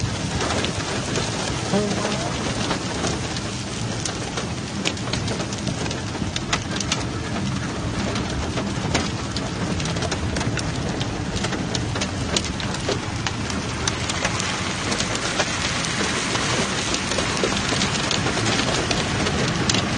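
Heavy rain beating on a car's body and windscreen, heard from inside the car: a dense hiss full of sharp drop strikes, growing a little louder over the last few seconds.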